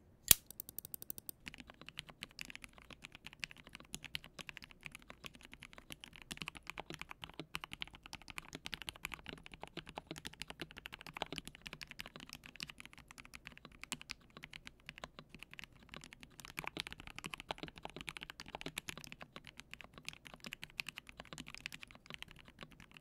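Typing on a KBD67 Lite R3 65% mechanical keyboard fitted with lubed CIY Red linear switches and Domikey ABS cherry-profile keycaps, with a cast silicone slab damping the bottom case: a few separate keystrokes, then from about a second and a half in a fast, continuous run of clacks. The silicone makes the board considerably quiet.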